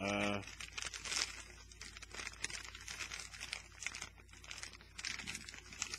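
Plastic snack packet crinkling and crackling in irregular small rustles as it is handled and turned over in the hands.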